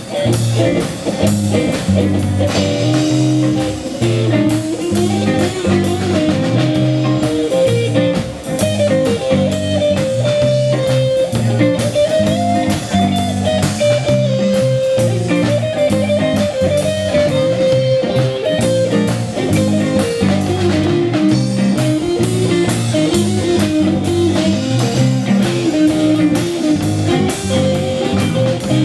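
A live rock band playing an instrumental stretch of a rockabilly tune: electric guitars, a bass line and a drum kit, with a lead guitar holding long, bending notes through the middle.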